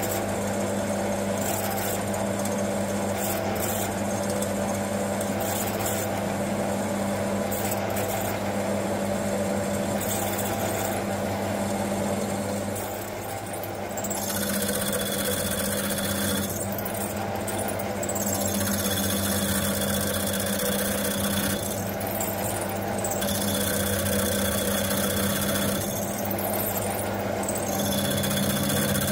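Metal lathe running with a steady motor hum while a drill bit in the tailstock chuck cuts into spinning stainless steel round stock. In the second half a steady high whine joins in, and harsher cutting noise rises three times, about five seconds apart.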